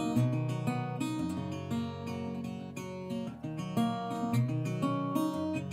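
Background music: acoustic guitar playing picked and strummed chords.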